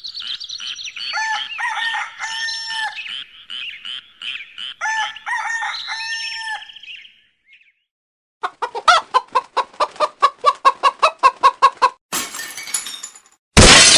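Chickens clucking and calling in a series of short pitched calls for about seven seconds. After a brief gap comes a fast, even run of pitched pulses, about five a second, for some four seconds. A short noisy burst follows, and near the end there is a sudden, very loud noisy crash.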